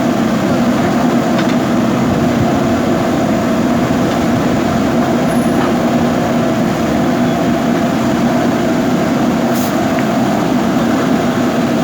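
JCB backhoe loader's diesel engine running steadily at a constant pitch, with a brief sharp click near the end.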